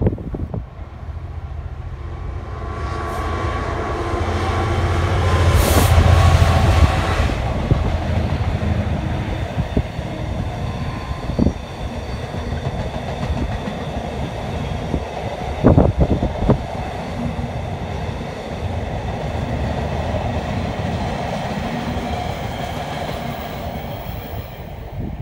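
Container freight train passing: the locomotive's engine noise builds and is loudest as it goes by about six seconds in, then the long rake of container wagons rumbles past steadily, with a few sharp knocks from the wheels. The rumble drops away near the end as the last wagons clear.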